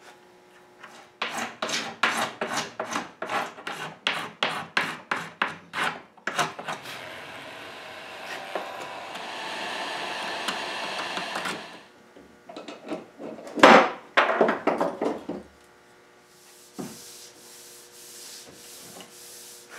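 Knife blade scraping across a wooden glue block, cleaning its crusted surface for regluing: about five seconds of quick strokes, roughly four a second, then one long steady scrape. A few harder strokes follow, the loudest of them about fourteen seconds in.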